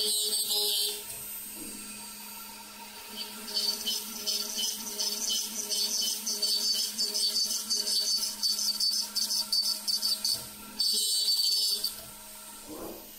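CNC router's 5.5 kW water-cooled spindle running with a steady hum while a small bit mills a bassoon body turned on the rotary fourth axis. The cutting comes as a high, rattly hiss in spells, with a louder burst about eleven seconds in that cuts off suddenly about a second later.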